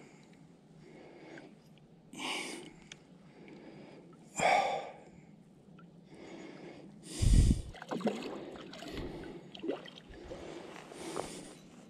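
A man's sharp breaths through the nose, about four of them a couple of seconds apart, with a low thump about seven seconds in: effort breathing while straining against a hooked fish.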